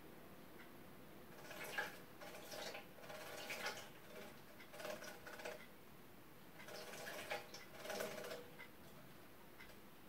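Gloster canary splashing in a clear plastic clip-on bird bath, fluttering its wings in the water in three bursts of a second or two each.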